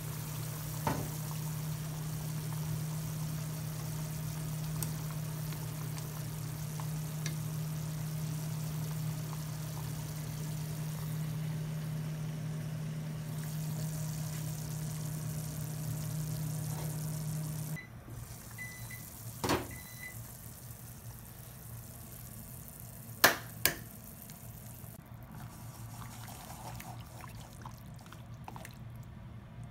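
A pot of soup bubbling on a gas stove over a steady low hum that cuts off abruptly about two-thirds of the way through. A knock and then two loud sharp clicks in quick succession follow.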